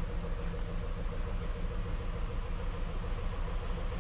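Rice mill driven by a Mitsubishi PS100 truck diesel engine, running steadily at a constant speed.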